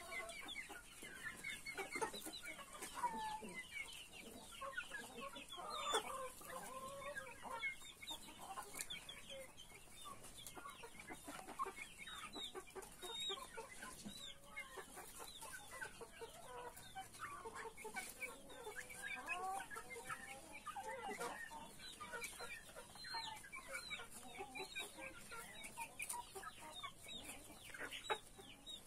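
A flock of chickens clucking continuously at a low level, many short overlapping calls, over a steady high hiss.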